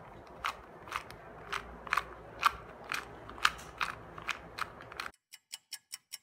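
Plastic 2x2 puzzle cube clicking as its layers are turned by hand, sharp irregular clicks about two a second. About five seconds in, it gives way to a quick, even run of ticks.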